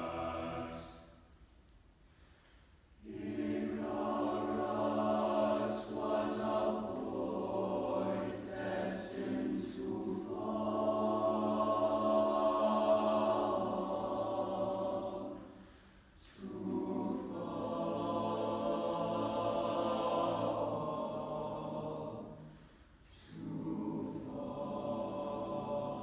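Mixed choir of boys and girls singing long, sustained chords, with three brief breaks between phrases.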